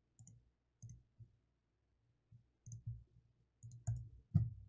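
A dozen or so light clicks and soft knocks at irregular intervals, with a quick cluster and the loudest click near the end.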